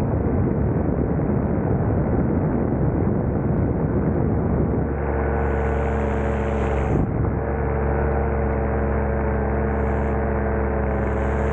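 Engine of a very light skydiving aircraft running in flight, mixed with a rough rush of air noise. About five seconds in the sound settles into a steadier, more even engine tone, with a brief dip a couple of seconds later.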